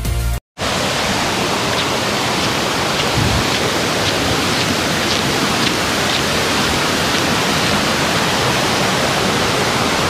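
Loud, steady rush of a rocky stepped waterfall running full after rain. Music cuts off just before it starts.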